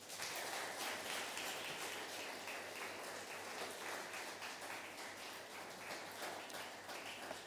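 Audience applauding: a dense patter of many hands that breaks out at once and eases slightly toward the end.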